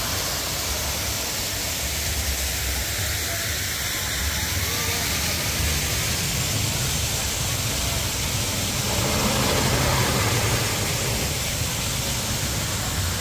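Wind rushing hard over the microphone with a steady low rumble, as heard riding a roller coaster; it swells slightly about nine seconds in.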